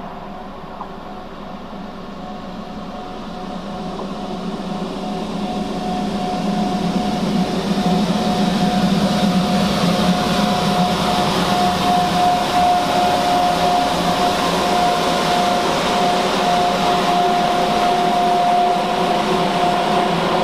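ÖBB class 1144 electric locomotive hauling double-deck City Shuttle coaches, approaching and passing at speed. Rail and wheel noise grows louder over the first several seconds and then holds. A steady high whine sounds over it.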